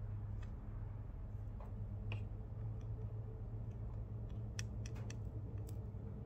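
Scattered faint clicks and crackles, thickest about four and a half to six seconds in, as a soldering iron melts solder into the copper-foiled seams of a stained glass panel and the flux spits under the hot tip. A steady low hum runs underneath.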